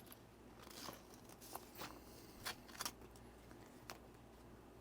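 Faint, light clicks and scrapes of small watch parts being handled as a strap is slid into a G-Shock watch's strap adapter, about half a dozen separate ticks.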